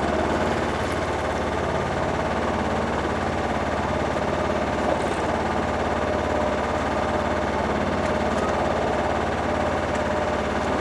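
Sailboat's engine running steadily under load, pulling hard astern against the anchor to test whether it has dug in.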